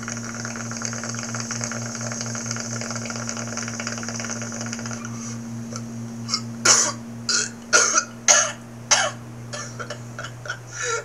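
A steady hiss for about five seconds, then a fit of coughing: five loud, harsh coughs about half a second apart, trailing off into smaller ones.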